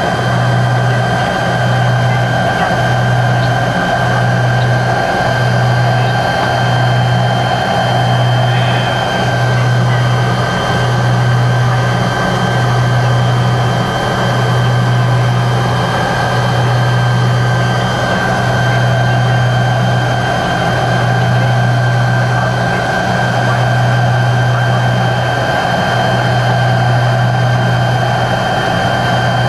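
Tupolev Tu-134B-3's two rear-mounted Soloviev D-30 turbofans heard from inside the cabin at low power on the ground: a steady low drone that throbs in a slow, even rhythm, with a thin high whine on top.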